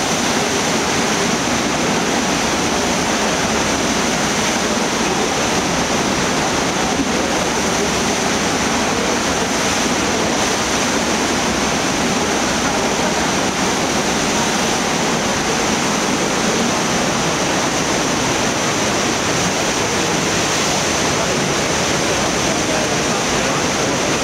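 Steady, loud rush of whitewater from the Eisbach standing wave, river water churning as it breaks over itself in one unbroken torrent.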